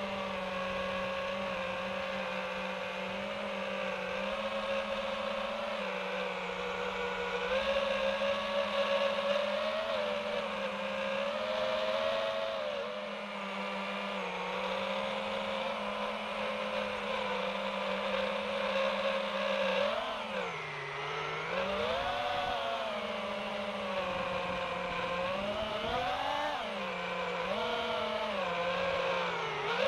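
iFlight Titan DC5 FPV quadcopter's motors and propellers whining in flight, the pitch rising and falling with the throttle, with deep dips and climbs about two-thirds through and again near the end.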